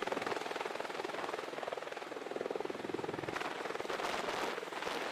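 Rotor aircraft's rotors beating in a steady, rapid chop, thin, with little bass.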